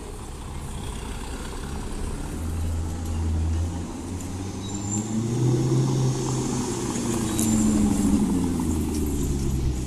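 Maserati GranTurismo S's 4.7-litre V8 running at low speed as the car drives slowly past. The engine note grows louder and a little higher about halfway through as the car comes close, then eases off slightly near the end.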